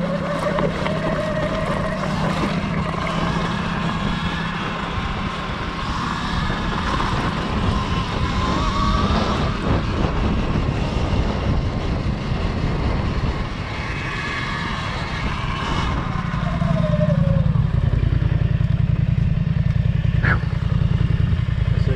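A Polaris Sportsman 850 ATV's engine and a Segway X260 (Sur-Ron) electric dirt bike's motor riding a trail together. The engine drones steadily while the electric motor's whine rises and falls with the throttle. The engine gets louder in the last few seconds, and there is a single sharp knock near the end.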